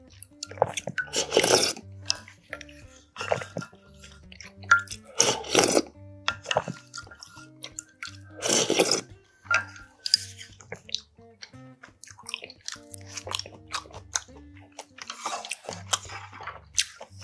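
Close-miked eating sounds: chewing and slurping of rice and beef soybean-paste stew, with short clicks of chopsticks and a spoon against a stainless steel pot. The loudest slurps come about a second and a half in, around five and a half seconds, and near nine seconds. Soft background music with held low notes runs underneath.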